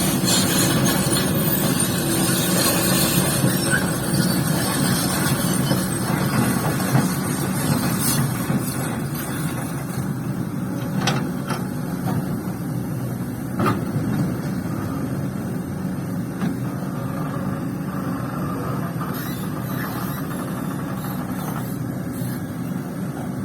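Heavy diesel machinery running steadily, the engines of a hydraulic excavator and dump truck at work, with a few sharp knocks in the middle.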